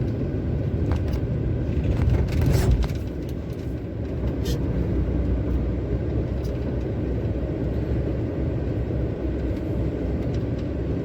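Truck running on the road, heard from inside the cab: a steady low engine and road rumble, with a few short knocks about two seconds in and another about four seconds in.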